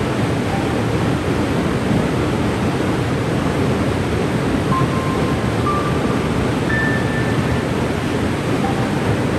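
Waterfall pouring steadily, a dense even rush of water, heaviest in the low range. A few faint short high notes sound briefly over it.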